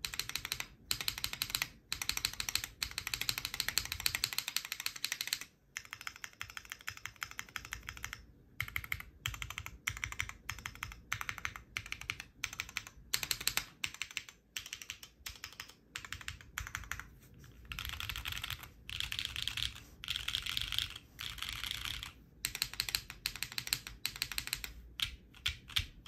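Typing on a SINGAKBD Kohaku R2 custom mechanical keyboard with hand-lubed BCP switches, a carbon fibre plate, GMK Nord keycaps and no foam dampening. Fast runs of keystrokes come with short pauses between them, and near the end there are a few separate key presses.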